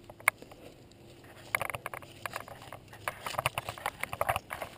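A single sharp click near the start, then from about a second and a half in, irregular crunching footsteps on dry leaves and gravel with small handling knocks.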